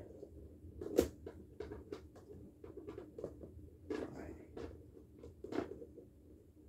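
Scattered small clicks and knocks of handling, the loudest about a second in, with a few more spread through.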